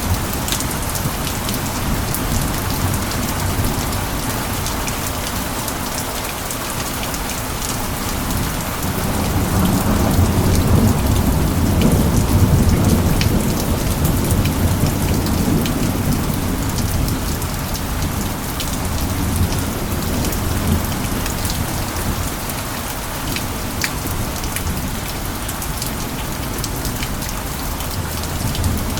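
Steady rain with scattered sharp drop impacts. About a third of the way in, a low rumble of distant thunder swells for several seconds, then fades back under the rain.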